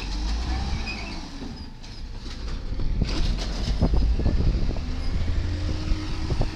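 Volvo automated side-loader garbage truck running as its arm lifts and empties a cart into the hopper, with a steady low engine rumble and several clanks and knocks from the cart and arm about two to four seconds in.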